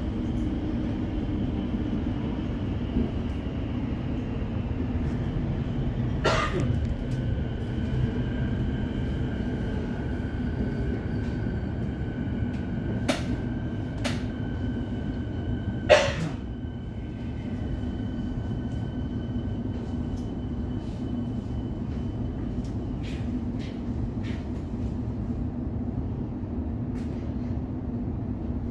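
Electric suburban train heard from on board, running with a steady low hum and high whining tones. A few sharp knocks come through, the loudest a little past halfway, after which the running sound drops slightly.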